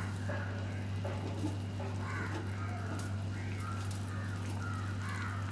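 A steady low hum, with faint bird calls repeating over it at irregular intervals.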